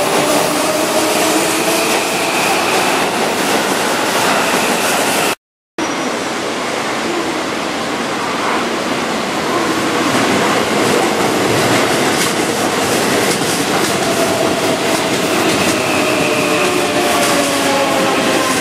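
Keihan 9000-series electric commuter train running past, a loud steady rolling rumble with faint whining tones that slide slightly in pitch near the start and near the end. The sound drops out completely for a moment about five seconds in, then the train noise resumes.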